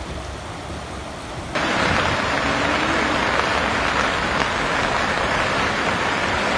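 Fast-flowing floodwater rushing, a steady hiss of churning water. About a second and a half in, it jumps abruptly louder to the rush of a swollen river in spate.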